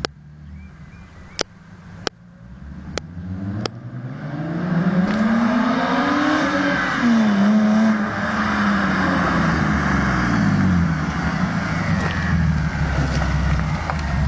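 BMW E36 320i's straight-six running through a Magnaflow exhaust. After a few sharp clicks, the engine note grows loud and climbs in pitch for a few seconds, breaks briefly, then falls back and settles to a steady run.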